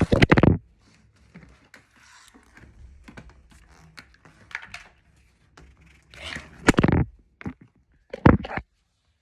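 Handling noises from wet/dry vacuum parts: scattered clicks, scrapes and rustling, with a loud knock at the start and two more near the end.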